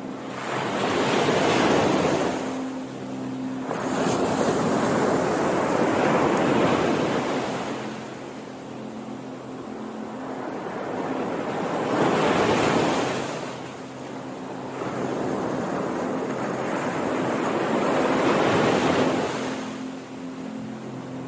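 Ocean waves breaking and washing up a shore. The surf swells and recedes in about four slow surges.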